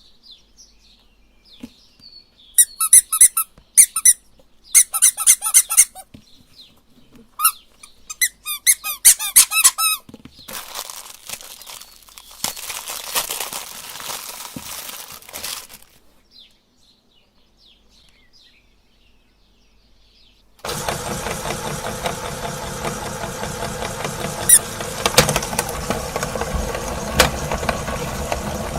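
High squeaks in several quick bursts, then a stretch of rustling noise. About two-thirds in, an electric meat grinder's motor switches on abruptly and runs steadily and loudly.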